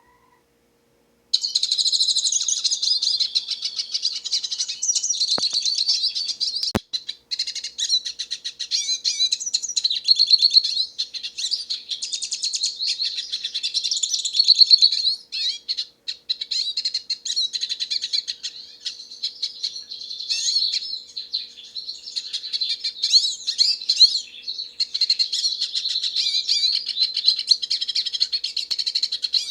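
Hooded siskin singing a long, fast, rambling twittering song that runs on without a break, starting about a second in after a brief silence. A single sharp click sounds about seven seconds in.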